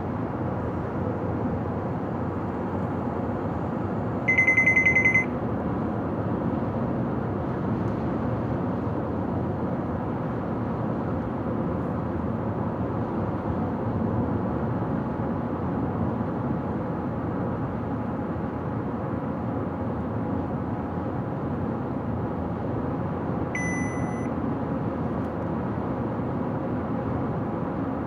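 Steady road and engine noise of a car driving on a highway, with two short electronic beeps: a loud one about four seconds in and a fainter one about twenty seconds later.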